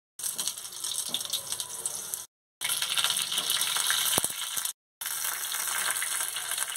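Stuffed pointed gourds sizzling in hot mustard oil on a flat iron tawa as they are laid in to fry. The steady hiss cuts off abruptly twice.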